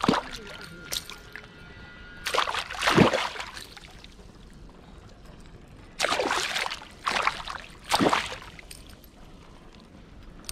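A hooked pacu thrashing at the surface of shallow pond water, making a string of separate loud splashes: one at the start, a longer flurry around three seconds in, and three more from about six to eight seconds in.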